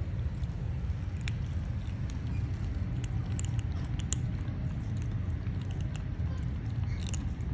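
Faint scattered crunching clicks of a kitten chewing its food, over a steady low rumble.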